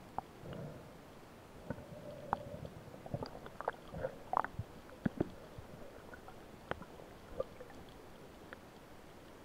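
Underwater ambience recorded from a submerged camera: irregular sharp clicks and knocks, thickest in the first half and sparse near the end, with a brief faint hum about two seconds in.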